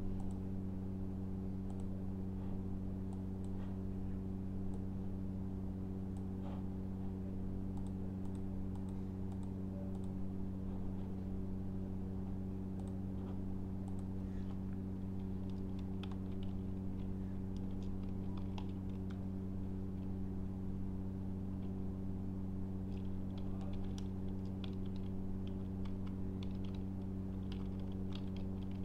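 Computer keyboard typing in short runs of keystrokes, busiest in the middle and toward the end, over a steady low electrical hum.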